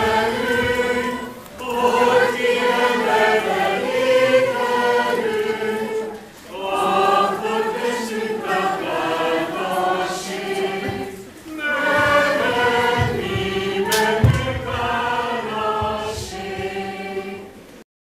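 A choir singing a slow song in long held phrases, with brief breaks between phrases every few seconds; the singing cuts off abruptly just before the end.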